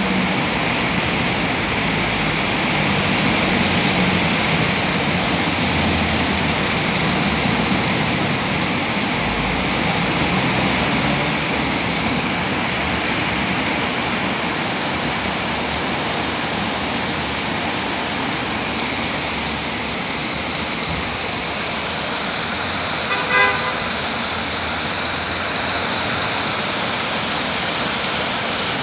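Heavy rain hissing steadily on a wet street, with vehicle traffic rumbling through it. A single short car-horn toot sounds about twenty-three seconds in.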